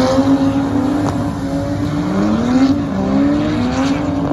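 Drift cars' engines revving hard, the pitch climbing and dropping again and again with the throttle. About two seconds in, one engine climbs steeply and falls away sharply just before three seconds.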